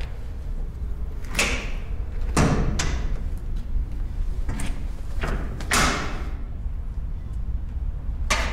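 Several separate thuds and knocks, about seven, each with a short echoing tail in a bare room.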